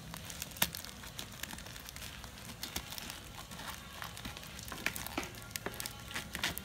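Crinkling and crackling of clear packing tape and black plastic wrap as fingers pick and scratch at a wrapped parcel, in short irregular crackles.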